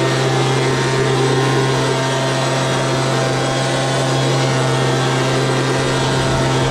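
Harvest machinery running at a constant speed: a steady drone with a strong low hum and several unchanging tones above it, with no change in speed or load.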